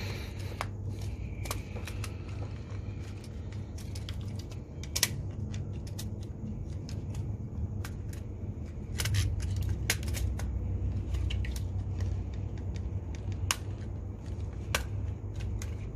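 Scattered sharp clicks and light knocks of hard plastic as the DJI Spark remote controller's clipped-in top shell is worked loose and lifted off by hand, over a steady low hum.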